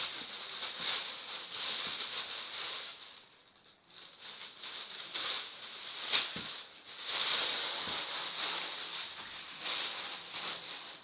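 Rustling and handling noise from sneakers being packed into a suitcase, coming and going in patches, with a couple of soft knocks about six and eight seconds in.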